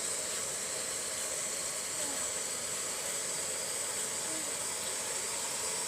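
Hot tap water running steadily through a hose into a dishwasher as it fills, a constant hiss.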